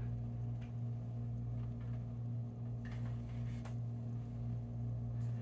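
Steady low hum with a few light clicks and taps of alcohol markers being handled and sorted.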